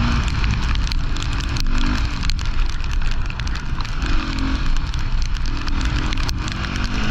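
Rally motorcycle engine running, its note coming and going in short pulses over a heavy, steady rumble and crackle of wind and gravel noise on the microphone.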